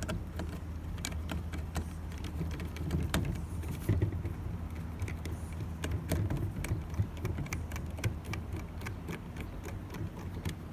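Screws being driven by hand to fasten a metal timer plate onto a hand dryer's switch box: irregular small metallic clicks and scrapes of the screwdriver and screws, over a steady low hum.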